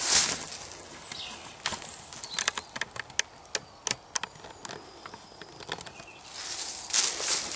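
Footsteps in dry leaf litter with twigs. A burst of rustling, then a run of sharp, irregular cracks and ticks, then louder rustling steps near the end.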